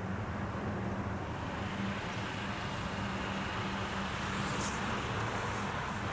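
Steady outdoor vehicle noise: a low hum under a wash of distant traffic that grows a little after about two seconds, with a brief hiss about four and a half seconds in.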